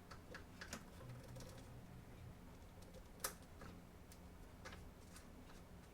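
Faint light clicks and taps of small parts being handled, over a low steady hum, with one sharper click a little after three seconds in.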